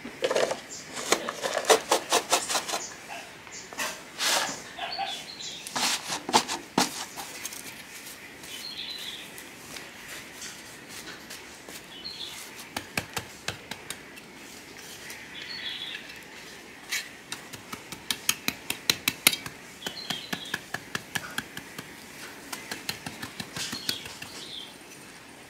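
Metal hand trowel chopping and scraping through dry, clumpy soil, in quick runs of gritty clicks that come and go. Small birds chirp now and then in the background.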